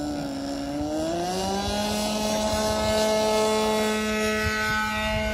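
Radio-controlled model plane's engine running up to full throttle on its takeoff roll, its pitch rising over the first two seconds and then holding steady.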